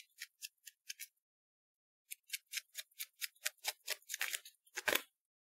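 Tarot cards being handled and flicked through, giving a run of light, sharp card clicks: a few at first, a pause, then a quicker run of about four or five a second with one louder snap near the end.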